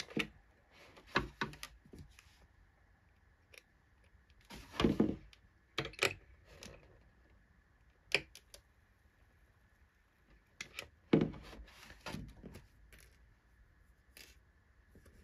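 Scattered clicks and short scrapes of a hot-staple plastic welder being worked against a cracked ABS motorcycle fairing as its heated metal staples are pressed and melted into the plastic. A faint steady high tone lies underneath.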